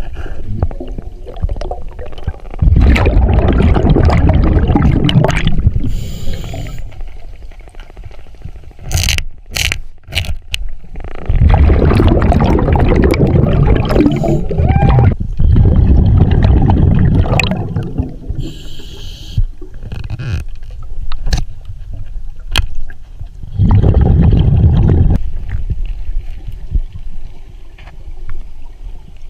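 Underwater bubbling and rushing water in several loud bursts of two to three seconds, with a few sharp clicks in between.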